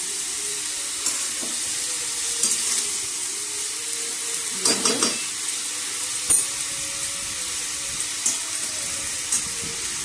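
Vegetables frying with a steady sizzle in a metal pan while a flat metal spatula stirs and scrapes through them, with scattered clicks and a louder scrape about five seconds in.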